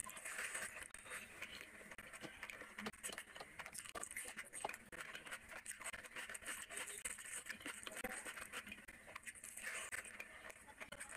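Mukbang eating by hand: wet chewing and lip-smacking of mouthfuls of rice and curry, a steady run of quick wet clicks, with the squish of fingers mixing rice into the curry.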